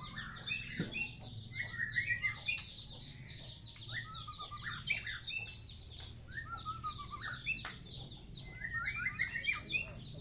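Several caged white-rumped shamas singing at once: a dense, overlapping chorus of rapid chattering notes and whistled phrases, over a faint steady low hum.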